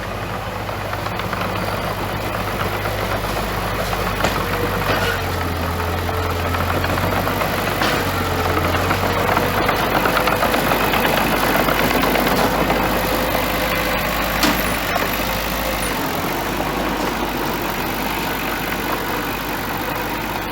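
Bulldozer's diesel engine running steadily, growing a little louder through the middle, with a few short metallic clanks.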